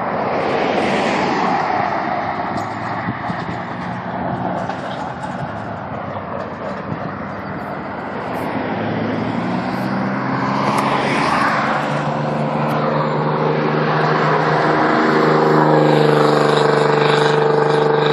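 Cars passing along a road, their tyre and wind noise swelling as an SUV goes by about ten seconds in. In the second half an engine's steady note grows steadily louder as a car approaches.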